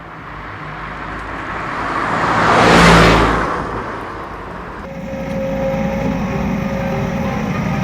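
A road vehicle passes close by, its noise swelling to a peak about three seconds in and fading away. About five seconds in, the sound cuts abruptly to a steady hum with several held tones.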